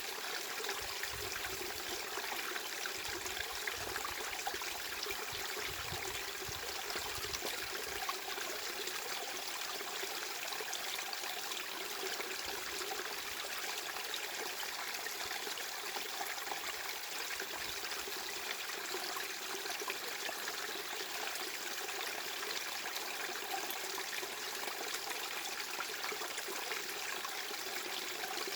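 Running water flowing steadily, a stream-like trickle and hiss that stays even with no pauses, with some faint low rumbling in the first several seconds.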